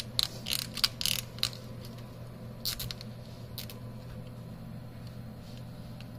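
Small sharp clicks and light rattles of parts and connectors being handled inside the laser machine: a quick run of them in the first second and a half, a few more around three seconds in, over a steady low hum.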